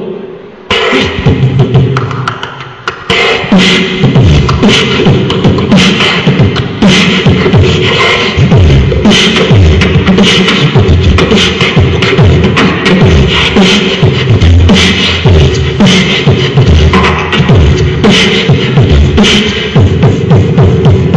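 Live beatboxing: mouth-made kick-drum hits and sharp snare and hi-hat clicks in a steady beat over a held tone. The beat fills out about three seconds in.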